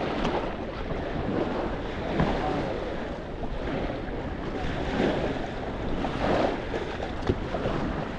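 Beach ambience: surf washing ashore and wind buffeting the microphone, with faint voices of beachgoers in the background.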